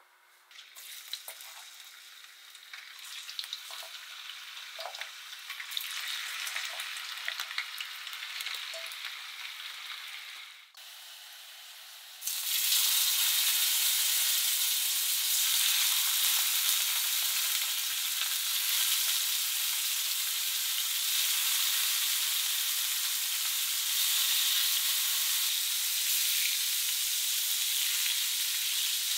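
Slices of salted pork shoulder loin sizzling in a stainless steel frying pan over a gas flame. The loud, steady sizzle starts suddenly about twelve seconds in as the meat goes into the hot pan. Before that there is quieter crackling with scattered ticks while the pan heats.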